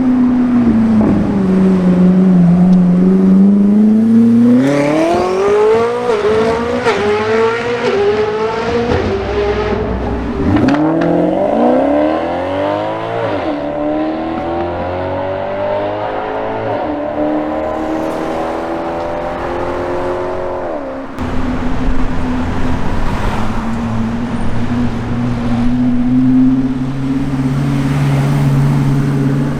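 Koenigsegg Jesko Attack's twin-turbo V8 accelerating hard through the gears, its pitch climbing and dropping back at each upshift. A second hard pull through the gears starts about ten seconds in. After about twenty seconds the sound changes abruptly to a steadier engine drone.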